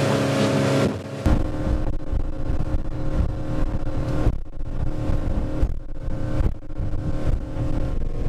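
Boat's motor running steadily at cruising speed, heard from inside the pilothouse cabin. About a second in the sound changes abruptly to a dense rushing and buffeting of wind and water as the boat runs through choppy water, with the motor still running underneath.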